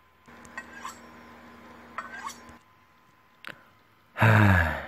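A man lets out a long voiced sigh, 'haaah', near the end, its pitch falling slightly. Before it there is only a faint steady background hum and one short click.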